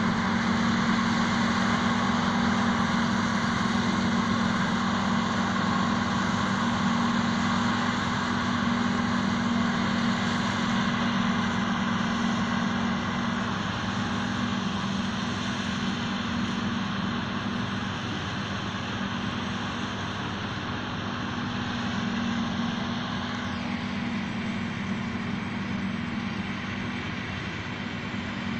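New Holland FX58 forage harvester chopping maize, heard across the field: a steady machine drone with a constant low hum under a broad hiss. It grows slightly fainter over time, and the upper hiss drops away near the end.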